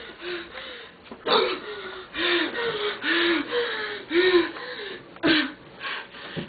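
A young woman's voice making short strained grunts, roughly one a second, between loud, noisy breaths, as if exerting herself.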